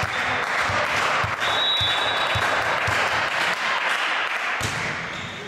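Spectators clapping in a sports hall after a volleyball point, the applause dying away near the end.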